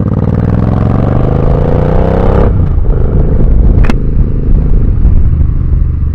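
Motorcycle engine pulling hard, its pitch rising steadily, then falling abruptly about two and a half seconds in as it shifts up a gear, and running on steadier after. A single sharp click about four seconds in.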